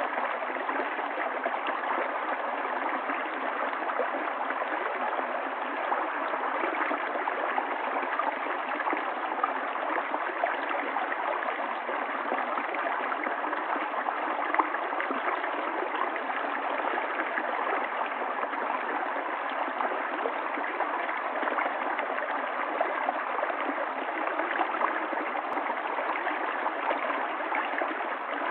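A small stream running and gurgling over rocks, a steady splashing rush with fine bubbling flickers.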